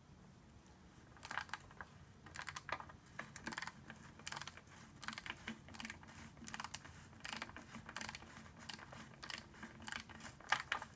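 Hand ratchet clicking in short runs of quick clicks, again and again, as the transmission oil pan bolts are run down.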